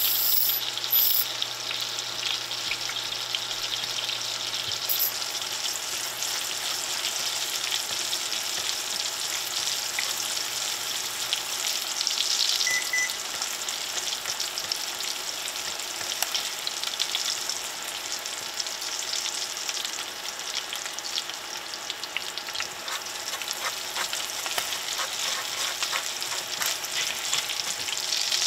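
Fresh Atlantic sea scallops searing in hot fat in a stainless steel skillet: a steady sizzle with fine crackling pops.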